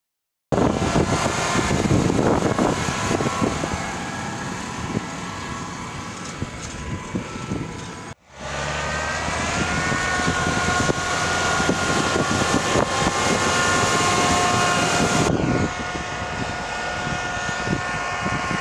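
Case IH Magnum 260 tractor's six-cylinder diesel engine running steadily under load while pulling a seed drill through the soil, with a steady whine over the engine note. The sound starts abruptly about half a second in, drops out briefly at about 8 seconds and changes again at about 15 seconds as the shots change.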